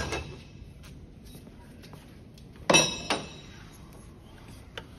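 A metal tool clanking against metal, once, about three seconds in, with a short ringing after it; a small click follows near the end.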